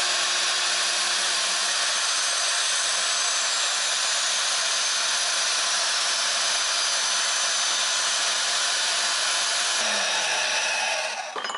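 Portable band saw in a bench stand cutting 3/4-inch square metal tube, a steady loud running noise. Near the end the motor winds down with a falling pitch and stops.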